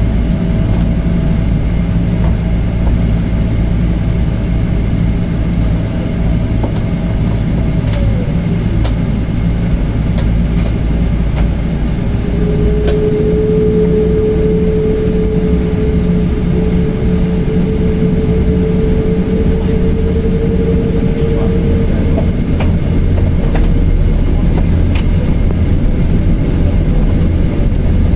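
Inside the cabin of a Boeing 777-300 with Rolls-Royce Trent engines: a steady low engine rumble. A whine slides down in pitch about eight seconds in, and another whine enters a few seconds later and rises slowly. A few faint clicks are heard along the way.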